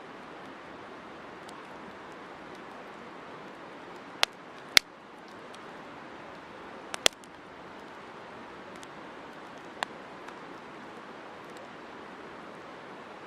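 Wood campfire burning with a steady hiss and light crackle, broken by a handful of sharp pops as the wood snaps, the loudest about five seconds in.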